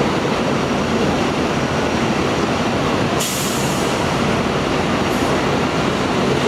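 Steady loud mechanical rumble of heavy machinery, with a brief high hiss about three seconds in and a fainter one near five seconds.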